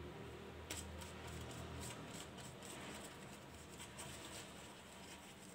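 Faint rustling and light brushing as thin warqa pastry sheets are folded over and dabbed with beaten egg from a silicone pastry brush, with a small click about a second in.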